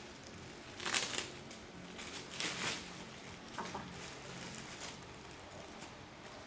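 Parcel wrapping crinkling and rustling as it is pulled open by hand, in two main bursts about a second and two and a half seconds in, with smaller rustles after.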